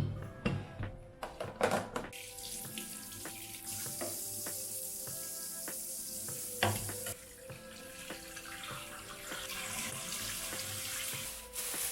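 Water running from a tap into a sink in two spells, with a few knocks of handled items in the first couple of seconds. Soft background music plays underneath.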